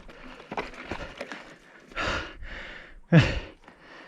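A man breathing hard from exertion: a few loud, rough breaths about two seconds in, then a short exhale that drops in pitch, like a groan, about three seconds in.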